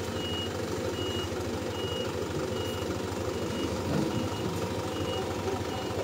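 A vehicle's reversing alarm beeping steadily, a single high tone about five times every four seconds, over a diesel truck engine idling.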